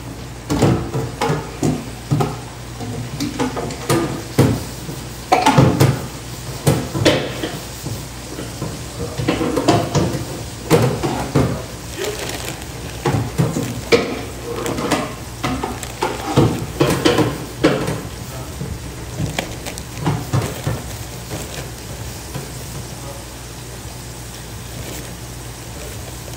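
Battered lobster deep-frying in a pot of hot oil, a steady sizzle, with irregular bursts of rustling and handling noise from a plastic bag of coating through the first three quarters or so.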